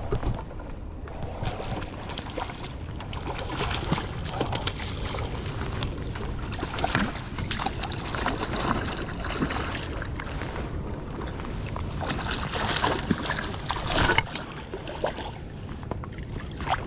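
Steady rush of river water with wind on the microphone, broken by frequent small knocks and clicks.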